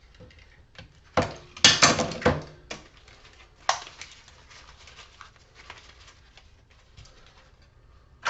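Knocks and clatter from a fluorescent light fixture being handled and taken apart for scrap. There is a quick cluster of loud knocks about two seconds in, then a couple of single knocks and faint ticking.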